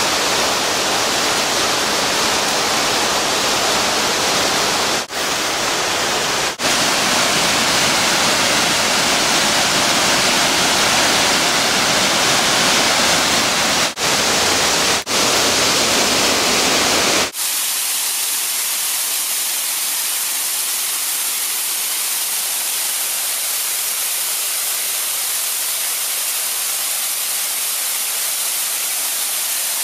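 Steady, loud rush of a mountain torrent and waterfall, broken by four brief dropouts. About seventeen seconds in it switches abruptly to a thinner, hissier rush with the deep part gone.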